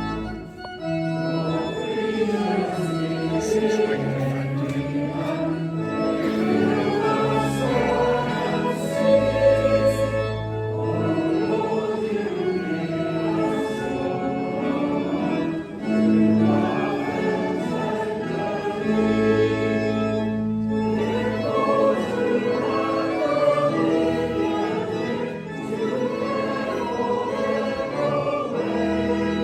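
A hymn sung by massed voices with organ accompaniment, the organ holding low notes beneath the singing.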